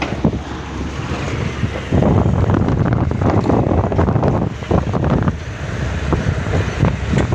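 Wind buffeting the phone's microphone: a loud, uneven, gusting noise, heaviest in the low end, growing stronger about two seconds in.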